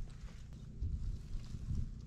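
Wind buffeting the microphone, a low rumble, with a couple of faint soft thumps.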